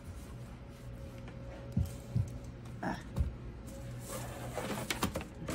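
Handling noise from a steam iron being moved and its cord shifted on a sewing table: a few soft knocks and clicks spaced out over a faint steady hum.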